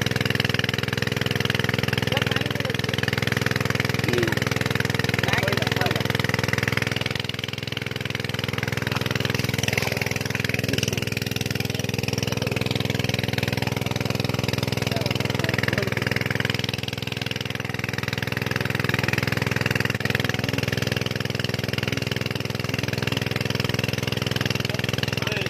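An engine running steadily at a constant speed, an even drone that does not rise or fall.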